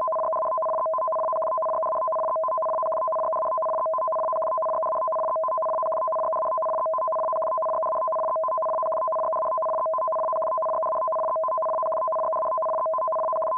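Electronic emergency alert tone: two steady pitches sounded together and held without a break, starting abruptly, signalling a tsunami early warning.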